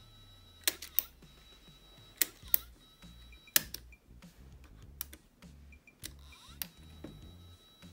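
Sony WM-190 Walkman's transport buttons and mechanism clicking as they are pressed: a series of sharp clicks, several coming in close pairs, over faint background music.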